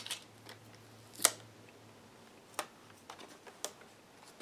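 A few scattered sharp clicks and taps from handling a laptop, the loudest about a second in, over a faint low hum.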